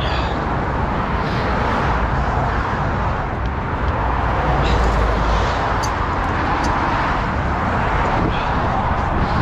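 Steady rumble of road traffic and heavy vehicles, with a few faint light metallic clinks.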